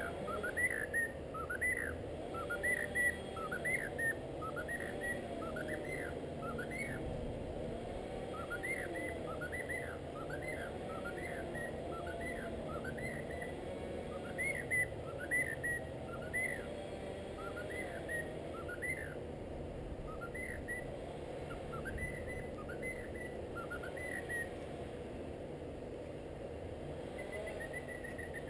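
Cockatiel chirping and whistling in a long run of short rising-and-falling notes, about two a second, with a brief pause about seven seconds in, and fewer notes near the end.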